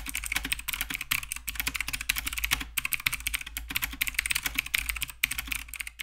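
Typing on an Aukey KM-G3 mechanical keyboard with blue switches: a fast, unbroken stream of sharp key clicks, the audible click of each clicky switch being pressed.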